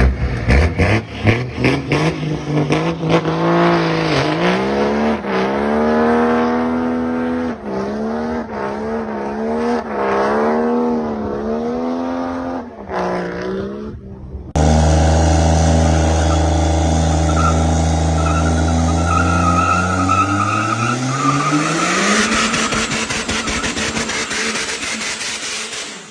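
Diesel pickup truck accelerating hard, its engine climbing in pitch and dropping back at each gear shift, several times over. After a sudden change, a Ram diesel pickup's engine runs at a steady low pitch, then revs up in one long rise near the end.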